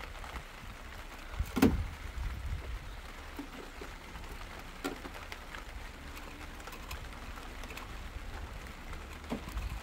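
Small clicks and scrapes of the Toyota Aygo's engine oil dipstick being worked in and out of its tube during an oil-level check, with one louder knock about a second and a half in, over a low steady rumble.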